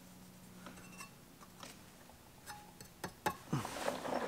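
Quiet workshop with a faint steady hum, then a few light clicks and knocks about three seconds in.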